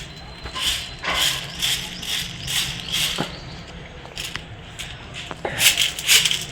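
Hand-turned stone chakki grinding chana into besan: the upper millstone rasps gritty over the lower one, about two strokes a second, louder near the end.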